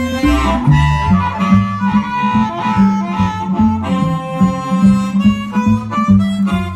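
Blues harmonica solo over guitar and a steady bass line, an instrumental break in a live band performance.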